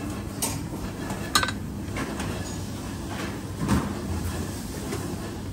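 A metal spoon clinking against a ceramic plate a few times, the sharpest clink about a second and a half in, over a steady low background hum.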